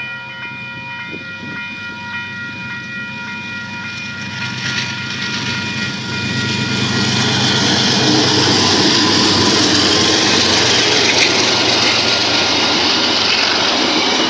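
Diesel locomotive hauling the TranzAlpine passenger train, approaching and then passing over a level crossing. Its engine hum grows louder, and from about halfway in it turns to loud, steady wheel-and-rail noise as the locomotive and carriages go by. Level-crossing bells ring steadily underneath.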